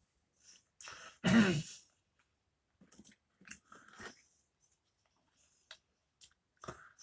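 A man eating Pringles crisps, with one short, loud cough about a second in. After it come scattered crunches of chewing and the rattle of a hand reaching into the cardboard crisp tube.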